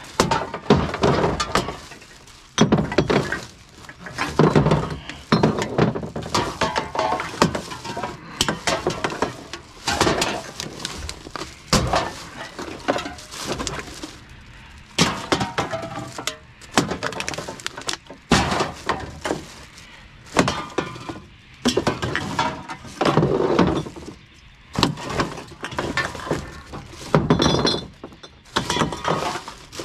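Glass bottles and cans clinking and clattering as they are rummaged out of a bin, in irregular bursts throughout, with a few bottles ringing briefly.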